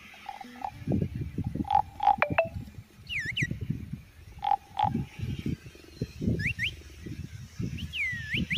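Frogs croaking in a dense, rough, irregular chorus, with short higher notes in pairs every few seconds and a few quick swooping calls over the top.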